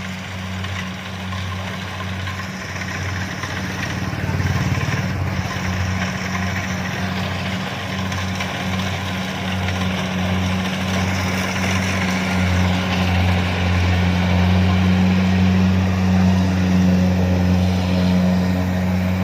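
Kubota DC-70 combine harvester's diesel engine running steadily under working load, a constant low drone with threshing-machinery noise above it, growing louder through the second half.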